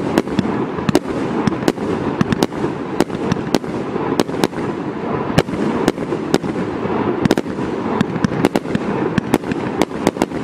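Two Mars Pyrotechnics Jekyll & Hyde 49-shot firework cakes firing together: an irregular, rapid run of sharp shots, several a second, with a steady rushing noise between them.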